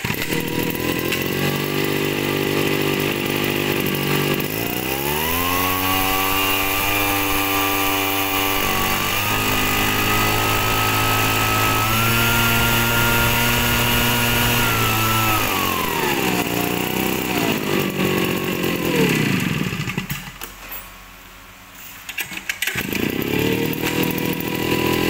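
Small 50cc two-stroke engine of a backpack mist blower running: it idles, revs up about four seconds in and holds high for some ten seconds, then falls back to idle. The engine sound drops away around twenty seconds in and is running again near the end.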